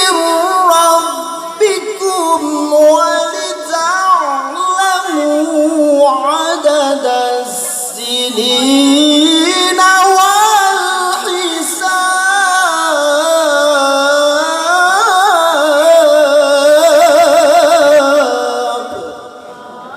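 A male Qur'an reciter in a long, ornamented melodic passage of tilawah, his voice gliding up and down in pitch. Near the end it turns into a quavering trill, then stops about a second before the close.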